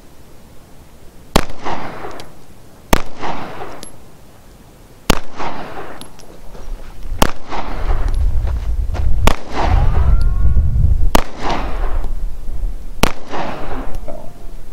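Sarsilmaz SAR K12 9mm semi-automatic pistol fired seven times in slow, aimed fire, about one shot every two seconds. Each sharp crack trails off in a short echo. A low rumble comes in under the middle shots.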